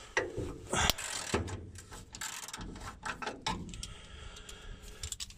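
Socket ratchet wrench clicking in short, irregular bursts, with light metal clinks, as a carrier bearing mount bolt on a driveshaft is loosened.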